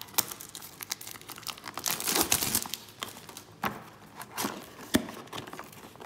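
Cardboard packaging being handled: a small box's paper sleeve and inserts sliding and rustling, with scattered sharp taps and crinkles.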